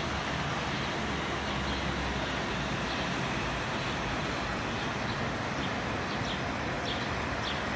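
Steady outdoor background noise like distant traffic, with a few faint short high chirps in the second half.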